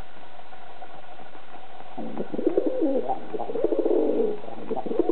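Pet pigeon cooing in low, rolling phrases, starting about two seconds in, breaking off briefly and starting again near the end. It is the cooing display the pigeon puts on when squaring up to fight.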